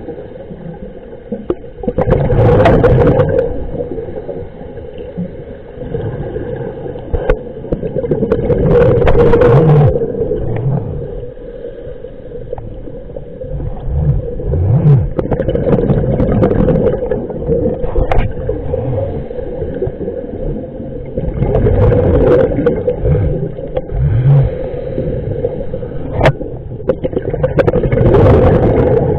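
Underwater, a scuba diver's exhaled breath bubbles rush and gurgle out of the regulator in five loud bursts about six seconds apart, with the regulator's breathing rhythm between them. A steady low hum and a few sharp ticks run underneath.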